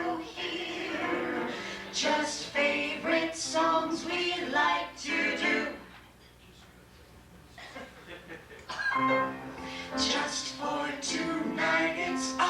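Live show-tune singing with piano accompaniment; the singing drops away for a couple of seconds around the middle, then resumes.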